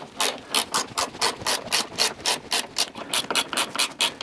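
Ratchet wrench worked back and forth to wind a coil-spring compressor claw tight on a suspension coil spring: a steady run of rasping clicks, about four to five a second.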